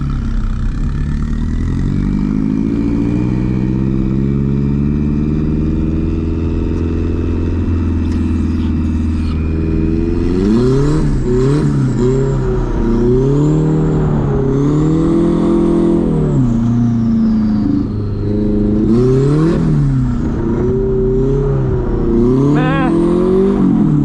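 Turbocharged Nissan 240SX's KA24DE four-cylinder engine heard from inside the cabin. The revs climb slowly through one long pull for about the first nine seconds, then rise and fall again and again, roughly every two seconds, as the throttle is worked on and off. A high whistle rises and falls along with the revs.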